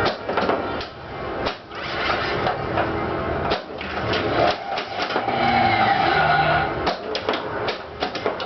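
Attack From Mars pinball machine in play: its electronic game music and sound effects, broken by frequent sharp clicks and knocks of the flippers, solenoids and ball.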